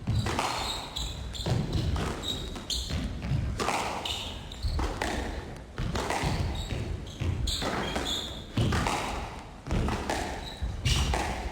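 Squash rally: the ball is struck by rackets and smacks off the court walls, a sharp knock roughly once a second.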